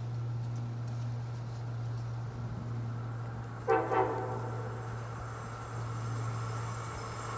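An approaching Amtrak train gives a quick toot on its horn about four seconds in, over the growing rush of the oncoming train and a steady low hum.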